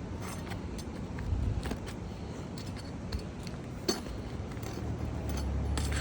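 Scattered light metallic clicks and clinks of a metal tool working roofing nails loose from under asphalt shingles, one sharper clink about four seconds in, over a low steady rumble.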